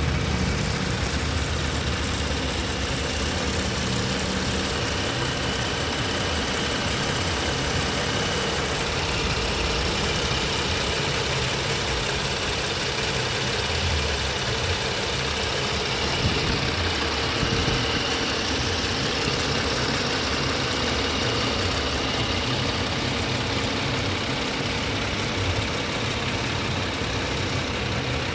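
BMW TwinPower Turbo engine idling steadily, heard up close in the open engine bay.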